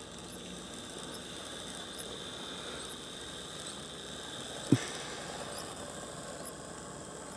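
HO-scale brass 4-6-2 steam locomotive model running along its track, a steady motor hum and wheel rattle, with one sharp thump about halfway through.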